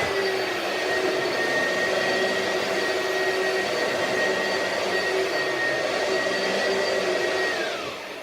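2005 Oreck XL Extended Life upright vacuum cleaner running steadily, its motor giving a high whine over a rushing airflow. Near the end it is switched off and the whine falls in pitch as the motor spins down.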